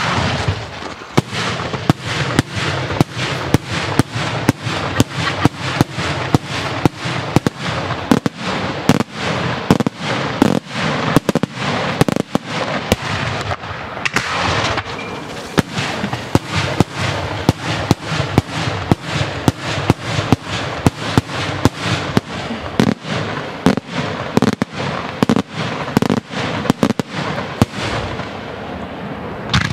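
Daytime aerial fireworks: shells bursting high overhead in rapid succession, several sharp bangs a second.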